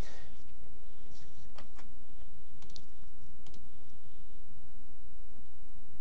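A few scattered clicks of computer keys, some in close pairs, over a steady low hum.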